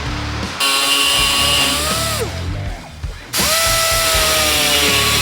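Handheld electric power tool running with a high whine, released and spinning down about two seconds in, then pulled again about a second later and spinning back up to speed.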